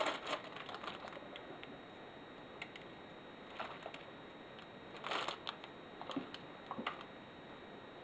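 Faint handling sounds of dry instant ramen noodle blocks and their packaging, with a few short scattered rustles and light ticks. The strongest comes about five seconds in.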